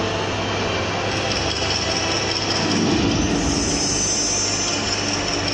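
Soundtrack of an indoor projection-mapping show playing over the room's speakers: a steady rushing, rumbling noise over a low hum, swelling about three seconds in.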